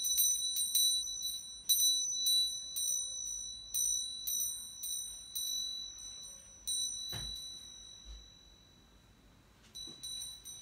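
Small altar bell rung in quick, uneven jingles, about two to three strikes a second, each leaving a high, bright ring. It stops about seven seconds in, when there is a soft thump, and a few more strikes come near the end. The bell marks the elevation of the consecrated host.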